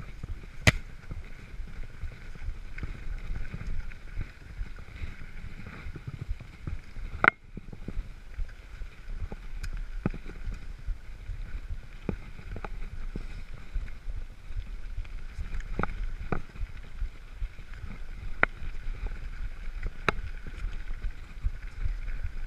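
Mountain bike rolling over a rough dirt and gravel track: a steady rumble of tyres and wind on the camera, with sharp knocks and rattles from the bike hitting bumps every few seconds.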